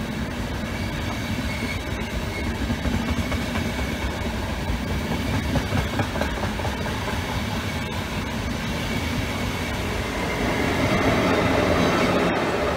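Passenger coaches of an InterCity train rolling past at speed, a steady rumble of wheels on the rails. Near the end the E.414 electric locomotive at the rear of the train passes close and the sound grows louder.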